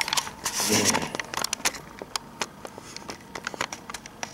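Handling noise from a hand-held camera being turned around and moved: scattered small clicks and crackles, with a brief rustle of fingers on the camera body about half a second in.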